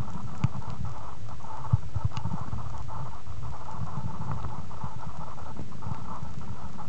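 Muffled underwater noise picked up by a compact camera sealed in a soft waterproof pouch: a steady low rumble full of irregular crackles and clicks, over a steady mid-pitched hum.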